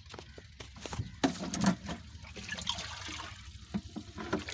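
A plastic jerrycan being held under water in a tank and filling, water gurgling and sloshing into it. There are a few light knocks at first, and the gurgling grows louder toward the end.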